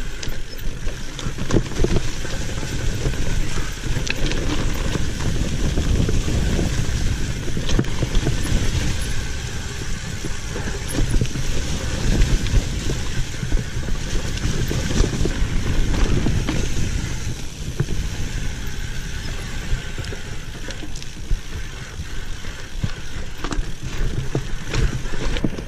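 Commencal Meta AM 29 mountain bike descending a rocky dirt singletrack: tyres rolling and skidding over dirt and stones, with frequent clicks and knocks as the bike rattles over roots and rocks, under steady wind rushing on the microphone.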